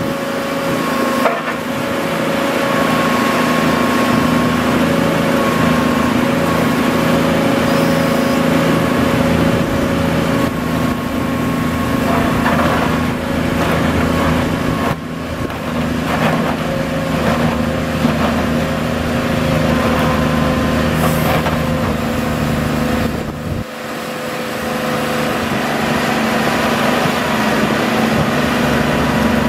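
Cummins L10 inline-six diesel of a Champion 740A motor grader running steadily while the machine works its blade. The engine note dips briefly twice, about halfway through and again later, with a few short clatters.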